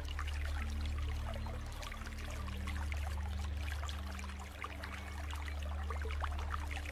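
Stream water trickling and splashing over rocks in a small cascade, with a steady low rumble underneath.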